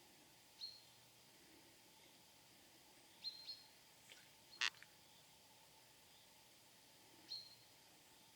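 Faint outdoor background hiss with a few short, high bird chirps several seconds apart, and one sharper, louder note about halfway through.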